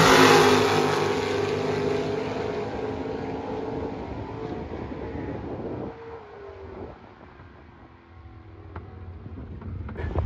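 Two Super Stock drag cars' engines at full throttle as they run down the strip, loud at first and fading steadily as they pull away. In the second half only faint distant engine sound and wind remain.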